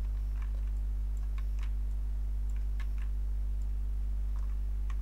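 Scattered faint clicks of a computer keyboard and mouse, about half a dozen over a few seconds, against a steady low electrical hum.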